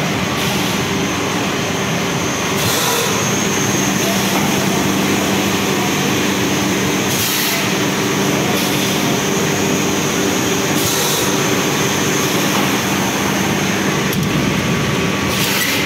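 Egg tray pulp-moulding line running: steady machinery noise with a low hum from the dryer conveyor's motor and gear drive, broken by a short hiss every few seconds.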